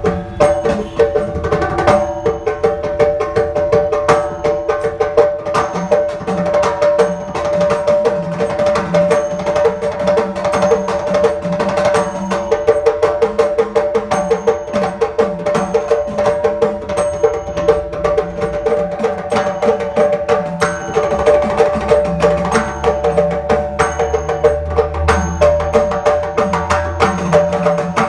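Mizhavu, large copper pot drums, struck with the palms in a fast, even run of strokes, with an edakka hourglass drum playing along, its pitch wavering up and down.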